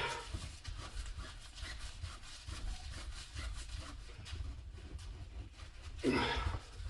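Threaded gland end of a hydraulic cylinder being unscrewed with channel-lock pliers: a dry metal-on-metal rasping made of rapid small clicks and scrapes. There is a louder scrape about six seconds in.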